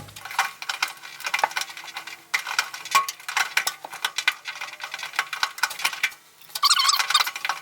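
Irregular clicks and light clinks of small metal and plastic parts being handled: a dryer drum roller and its plastic retaining clip being worked off the shaft. A short rasping scrape near the end.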